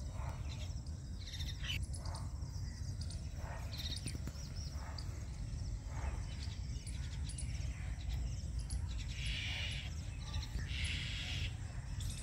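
Assorted wild birds calling and chirping over a steady low rumble. Two short bursts of rapid chattering calls come about nine and eleven seconds in.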